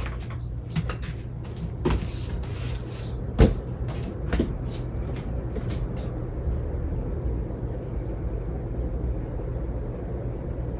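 52-inch Hunter Original ceiling fan running after its break-in period, with a steady low hum. Scattered clicks and knocks sound over the first half, the loudest a sharp knock about three and a half seconds in.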